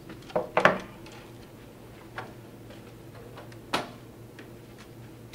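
Computer hardware handled on a desk: a few sharp clicks and knocks as hard drives and cables are set down and picked up, the loudest about half a second in and others near two and four seconds, over a low steady hum.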